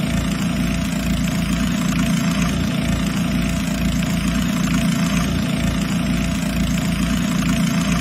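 Small engine-driven water pump running steadily: a low, throbbing engine drone.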